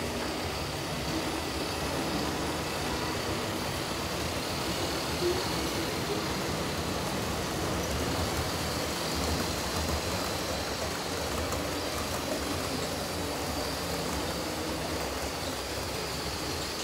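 Model trains running on a large model railway layout: a steady, even rumble and whir of wheels and motors on the track.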